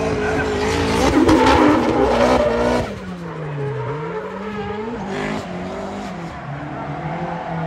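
A drift car's engine at high revs with tyre squeal for the first three seconds. The squeal then stops and the engine note falls away and climbs back up within about two seconds.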